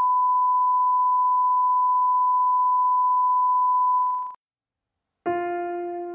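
Test-card tone: one steady, pure, single-pitch beep held unchanged, fading out about four seconds in. After about a second of silence, slow piano music begins near the end.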